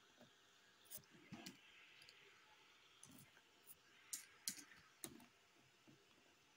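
Faint computer mouse and keyboard clicks: about eight short, sharp clicks scattered over several seconds, as a value is typed into a dialog box and confirmed with a mouse click.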